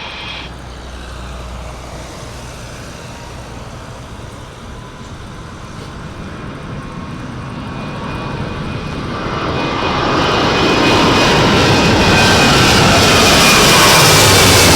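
Boeing 737-800's CFM56-7B turbofan engines at takeoff thrust, a steady jet noise that grows much louder from about eight seconds in and then holds, with a faint whine over it.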